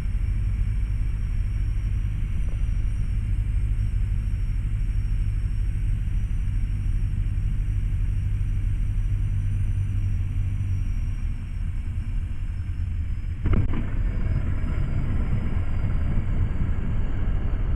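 A Grob 109A motor glider's Limbach flat-four engine and propeller drone steadily. About 13 seconds in there is one sharp knock, after which the rumble turns rougher and noisier.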